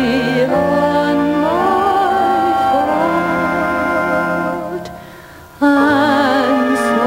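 A woman singing a slow gospel song in long held notes with vibrato over instrumental accompaniment. About five seconds in, the music dies away briefly, then she comes back in loudly on a held note with wide vibrato.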